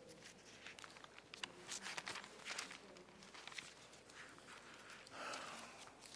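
Faint rustling and soft clicks of thin Bible pages being leafed through by hand, with a slightly louder rustle about five seconds in.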